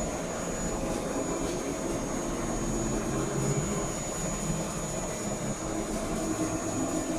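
CNC lathe carriage jogging along its Z axis, a steady mechanical servo whine and hum with pitch lines that shift a little as it moves.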